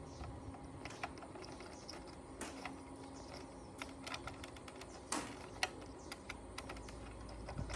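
Irregular light clicks and taps, a few louder ones about five seconds in, over a faint steady hum.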